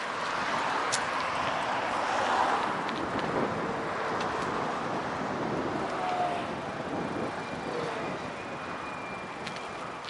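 Road traffic passing on a city street: a steady wash of tyre and engine noise that swells and fades as cars go by.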